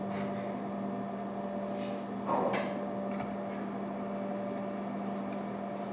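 Steady electrical hum, with a brief scrape about halfway through as a knife cuts through baked acorn squash against a plate.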